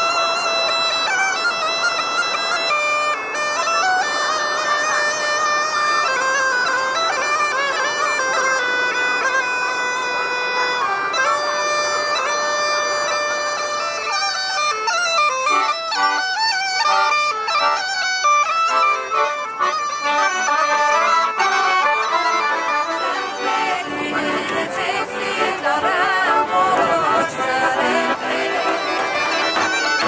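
Bulgarian gaida (bagpipe) playing a folk dance tune. About halfway an accordion joins in, and for the last few seconds a large tapan drum beats along.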